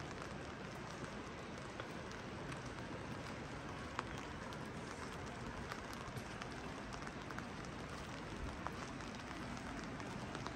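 Steady rain falling, with many scattered drops ticking sharply close by.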